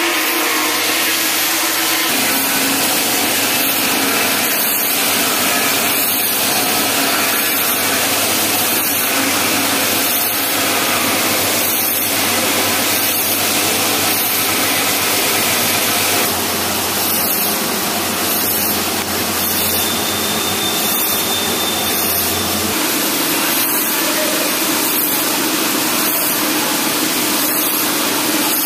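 CNC lathe running, its spindle spinning a steel bar held between chuck and tailstock centre, a steady whirring machine noise. A low hum underneath stops about three-quarters of the way through.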